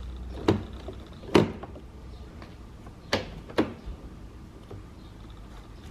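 Plastic interior door trim panel being pressed into the door and its weather stripping, giving four sharp knocks and snaps, the last two close together.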